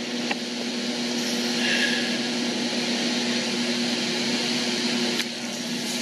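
Steady mechanical hum with a constant low tone, with a faint click about a third of a second in and another near the end.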